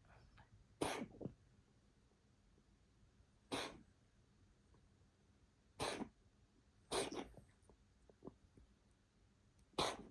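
A coughing fit: five short, sharp coughs at uneven gaps of one to three seconds, some followed by a quick second hack.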